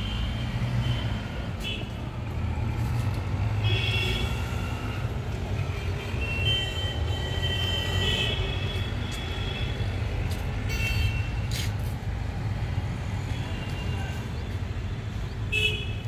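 Distant city traffic: a steady low rumble, with vehicle horns tooting several times, some short and one held for a couple of seconds.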